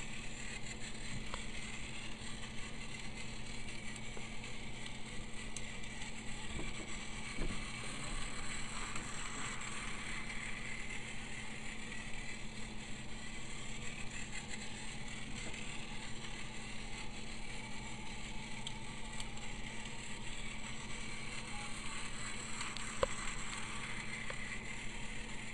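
Motorised Tomy Plarail Percy toy engine running around a loop of plastic track, its small battery motor whirring and its wheels rattling steadily. The sound swells and fades every ten seconds or so as the train circles nearer and farther away.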